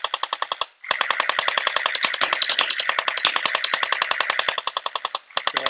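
Anstoy M4A1 electric gel ball blaster with its Gen 8 gearbox firing full-auto from a drum magazine, a rapid even string of shots. The firing pauses briefly under a second in, then runs in a long burst, stops again briefly near the end and restarts. The balls are feeding and firing steadily.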